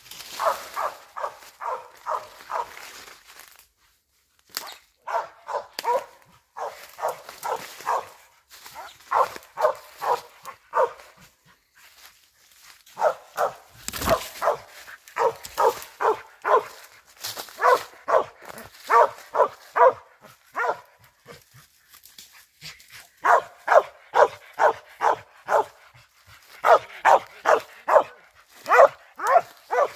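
Squirrel dog barking at a tree in fast runs of about three barks a second with short pauses: the steady chop of a dog that has treed a squirrel. There is one thump about halfway through.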